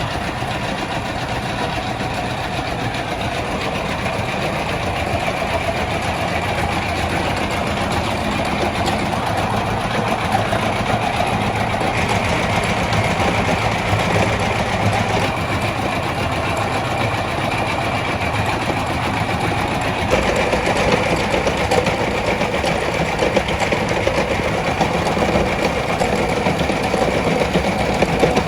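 Flour-mill machinery running steadily with a fast, fine rattle.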